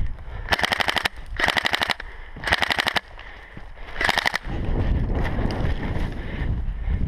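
Airsoft electric rifle (AEG) firing four short full-auto bursts, each a rapid rattle of shots. After the last burst, a low rumble of movement and wind on the microphone.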